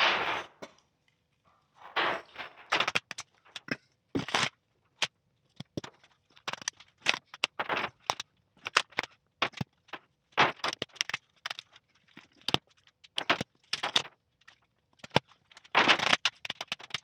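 Clear plastic patterning sheet crinkling and crackling in short irregular bursts as it is pulled and smoothed flat by hand to take out wrinkles.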